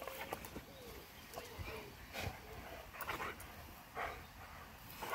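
Briard dog making short whines and then about four short barks as it plays at a lawn sprinkler's water jet.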